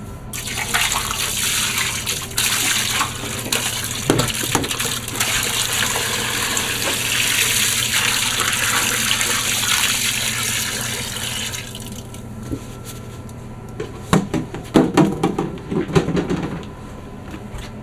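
White vinegar poured in a steady stream from a large plastic jug into a steel pot of sauce, running for about eleven seconds before stopping. After it, a few knocks and a short clatter of kitchen things.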